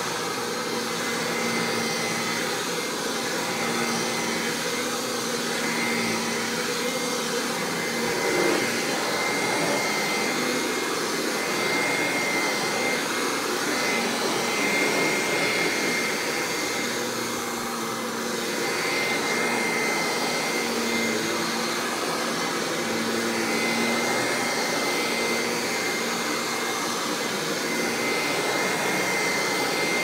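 Kirby G5 upright vacuum running steadily with a high whine. Its motor is one the owner says is getting weak and lacks power.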